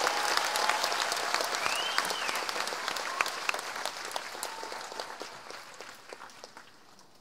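Concert audience applauding at the end of a song, with a single rising-and-falling whistle about two seconds in; the applause fades steadily away.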